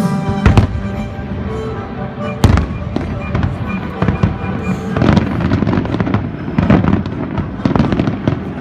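Fireworks shells bursting in a rapid string of bangs and crackles, with the loudest bangs about half a second and two and a half seconds in. The show's music plays underneath.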